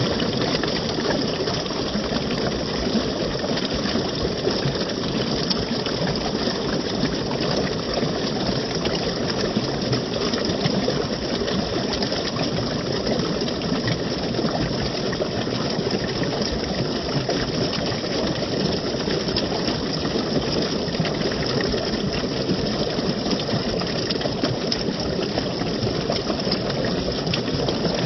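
Running water rushing steadily and evenly, without pause or change.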